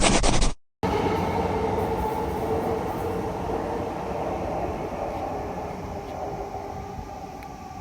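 Train running: a steady rumble with a humming tone that slowly fades. It is preceded by a short burst of noise that stops abruptly, then a brief gap, in the first second.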